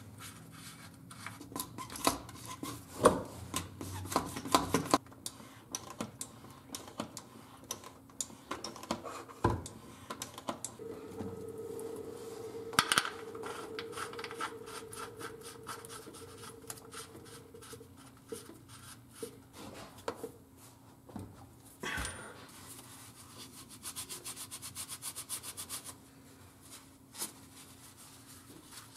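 Hand tools at work on the fill plug of a Jeep's NP231 transfer case: a socket ratchet clicking and knocking on the metal case, with hands and a rag rubbing. A steady hum runs through the middle, and a fast, even run of clicks comes about three-quarters of the way in.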